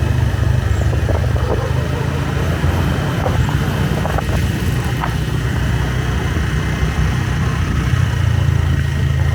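Motorbike running steadily while being ridden, a continuous low rumble of engine and riding noise.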